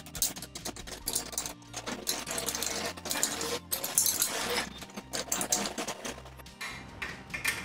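Irregular clicks and scrapes of plastic and metal as a projector is fitted onto its metal ceiling-mount bracket, over background music.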